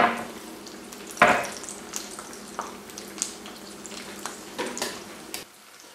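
Eggs frying in bacon grease in an electric skillet: a steady sizzle with scattered small pops and crackles. Two knocks stand out, at the start and, louder, about a second in. The sizzle drops away just before the end.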